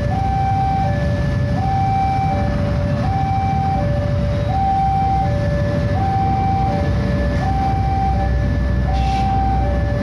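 Railway level-crossing warning alarm sounding its steady two-tone chime, a higher tone then a lower one, about one pair every one and a half seconds. Underneath is a low rumble of idling motorbike traffic and a passenger train crossing, which grows a little stronger in the second half.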